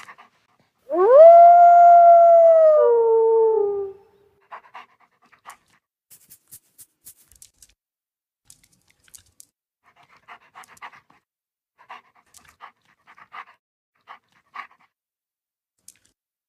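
A wolf howling once: a single long howl about a second in that rises quickly, holds steady for about three seconds, then drops in pitch in two steps as it fades. Faint short soft sounds follow.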